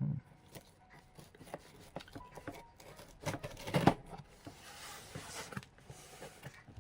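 Packaging being handled and opened by hand: scattered small clicks and taps, a single loud knock partway through, then about a second of rustling, scraping noise.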